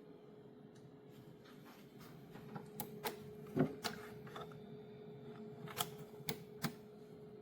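A handful of irregular sharp clicks and knocks, the loudest about halfway through, over a faint steady hum.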